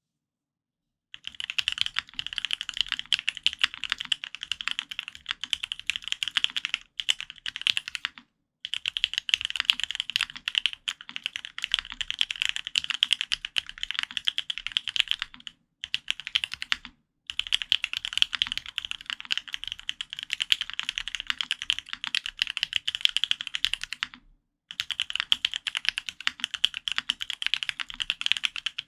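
Fast typing on a custom F1-8X polycarbonate-case mechanical keyboard with lubed Gateron Ink Black v2 linear switches and Linworks Burgundy keycaps. The keystrokes come as a dense stream of clicks, starting about a second in and running in long runs broken by a few brief pauses.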